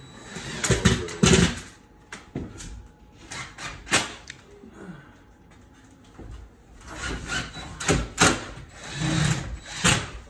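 Cordless drills driving drywall screws into a ceiling, in several short bursts of motor whine a few seconds apart.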